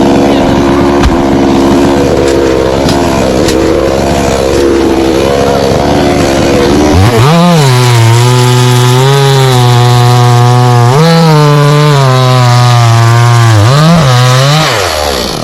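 A two-stroke chainsaw running loud and cutting coconut wood. About halfway through it drops to a lower, labouring pitch under load, with brief rises in pitch when the load eases, then stops suddenly at the end.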